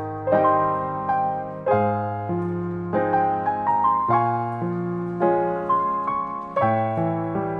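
Background piano music: a gentle melody of struck notes that each fade, about two a second, over lower held notes.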